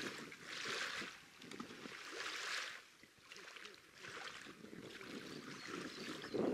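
Small waves lapping and washing onto a pebbly river shore, a soft hiss that swells and fades every second or two, with wind buffeting the microphone underneath.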